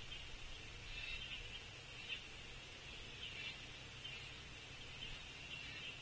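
Faint outdoor ambience: a steady high-pitched chorus of small animals with a low rumble underneath, and a soft knock about two seconds in.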